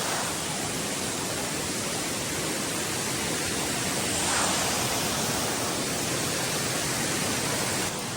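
Steady rushing noise of water, swelling slightly about halfway through and dipping a little near the end.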